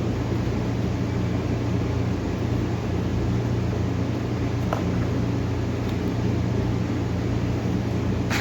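Steady low machine hum with an even hiss underneath, and a couple of faint clicks about halfway through and near the end.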